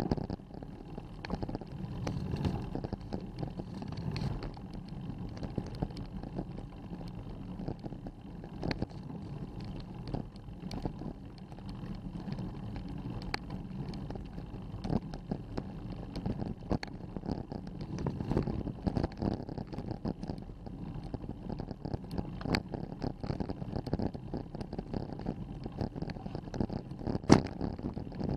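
Road bicycle climbing a steep grade at walking pace, heard through a handlebar-mounted action camera: a steady low rumble of tyres and frame vibration with frequent small clicks and rattles, and one sharper knock near the end.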